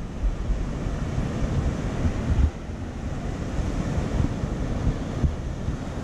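Sea waves breaking and washing up a sand-and-pebble beach, with wind buffeting the microphone in uneven gusts.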